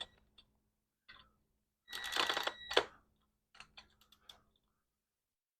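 Metal clicks and clinks from a hand tool on steel bolts being tightened: a quick run of clicks about two seconds in ending in a sharp click, then a few light ticks.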